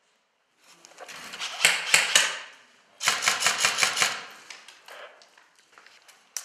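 Airsoft electric rifle firing rapid full-auto bursts: a short rattle about a second and a half in, then a longer, evenly paced rattle lasting about a second from three seconds in, followed by fainter scattered clicks.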